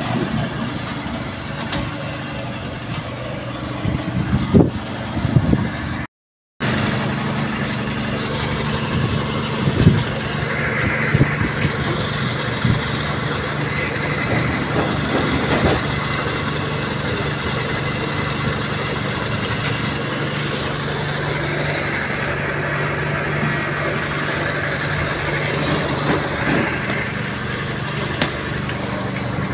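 An engine idling steadily in the background, with a few scattered knocks and scrapes from handling a truck tyre and its inner tube.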